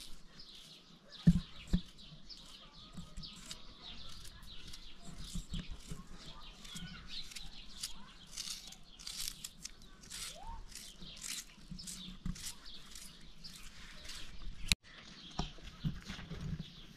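Small birds chirping, with two dull knocks about a second in and a sharp click near the end.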